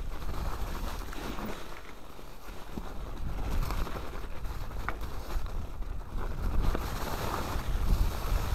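Mountain bike riding down a snowy woodland trail: a steady rumble of wind on the microphone and tyre noise, with a few brief knocks and rattles from the bike over the bumps.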